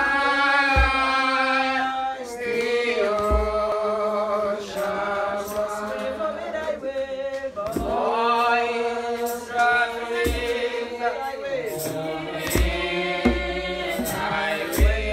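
A man's voice singing with a wavering vibrato, with a few deep djembe hand-drum strokes now and then.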